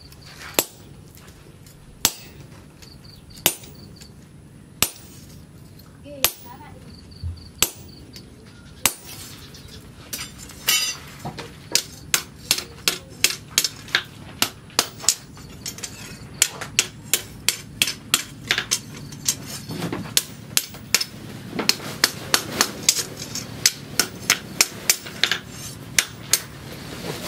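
Hand hammer striking a steel machete blade, forged from a sprocket, on a steel anvil. It starts with single blows about every second and a half, then from about ten seconds in a quick run of blows, several a second, as the blade is shaped.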